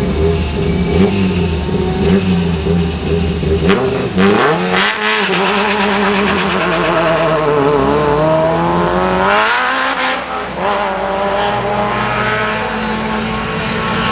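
Rally car idling at the start line, then pulling away hard about four seconds in: the engine note climbs, drops back and climbs again several times as it shifts up through the gears, while another rally car's engine idles close by.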